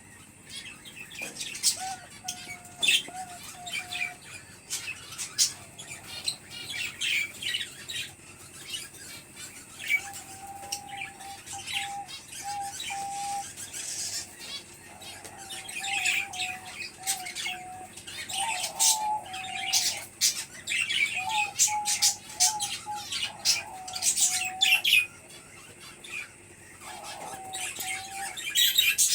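Many small aviary birds chirping and squawking busily, with short sharp calls throughout and a wavering, lower whistled phrase repeated in several stretches.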